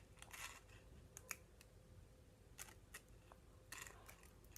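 Faint crinkles and small clicks, a few at a time, of a foil Pokémon booster pack being worked open by hand.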